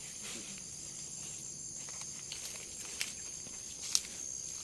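Steady high-pitched insect chorus of field insects, with a few sharp clicks, the loudest about four seconds in.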